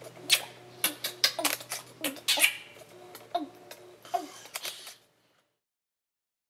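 A baby's short giggles and babbling mixed with several sharp camera shutter clicks from an Olympus E-PL1 shooting a burst, then dead silence from about five seconds in.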